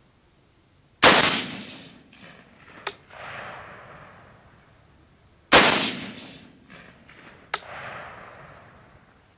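Two shots from a Bushmaster Carbon 15 AR-style rifle in .223/5.56, about four and a half seconds apart, fired to check the scope's zero after a windage adjustment. Each shot dies away in a trailing echo, and a sharp click follows about two seconds after each.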